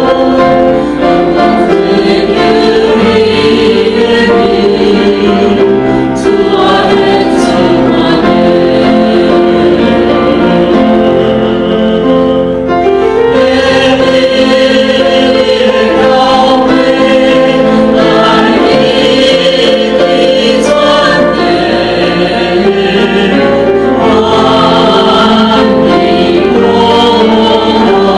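Church congregation singing a worship hymn together, led by two women singing into microphones. Sustained sung phrases carry on without a break.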